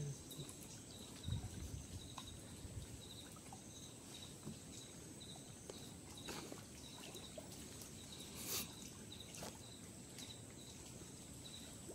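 Quiet creek ambience: a faint chirp repeats about twice a second over a steady high tone. A few faint splashes and a knock come as a man climbs out of a wooden boat into knee-deep water, mostly in the second half.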